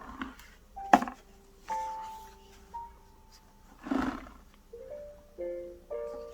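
Soft background music of held, mallet-like notes, with a sharp click about a second in and a short noisy burst about four seconds in.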